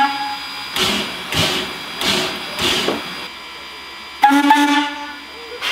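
Heisler geared steam locomotive getting under way: four exhaust chuffs about two-thirds of a second apart, then a short steam whistle blast a little past four seconds in. It opens on the tail of an earlier short whistle toot.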